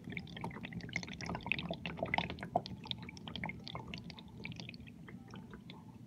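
Water dripping and splashing irregularly inside a GE dishwasher, the drops thinning out and fading toward the end.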